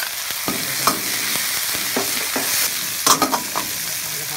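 Minced pork, garlic and chillies sizzling in hot lard in an iron wok while a metal ladle stirs them, scraping and clinking against the wok; a quick run of clinks comes about three seconds in.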